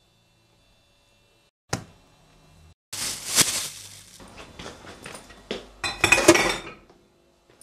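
Kitchen clatter of a table knife against a glass jam jar and crockery: one sharp clink about two seconds in, then a run of clinks and scrapes, loudest near the end.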